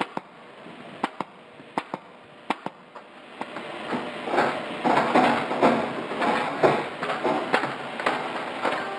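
A staple gun firing, about six sharp clicks over the first three seconds as locking slides are stapled to roller-shutter slats. From about three and a half seconds in, a dense, irregular clatter of the shutter slats knocking together as the curtain is handled and rolled up.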